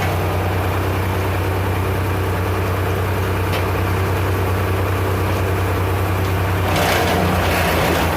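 An engine running steadily at idle, picking up and growing louder for a couple of seconds about seven seconds in.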